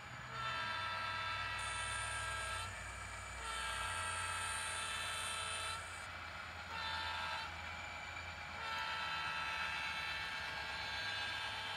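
The sound decoder in a model Rio Grande SD40T-2 diesel locomotive sounding its horn in the grade-crossing pattern: two long blasts, a short one, then a long one, over the steady hum of its diesel engine sound.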